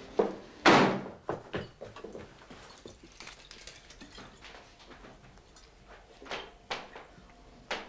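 Fabric rustling and small knocks as clothes are rummaged through and handled, with the loudest rustle about a second in and a few shorter ones near the end.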